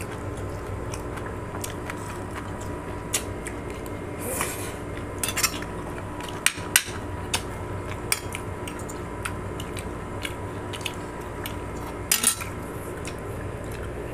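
Metal forks and spoons clinking and scraping on ceramic plates while eating, in scattered short clicks with a few bunched together.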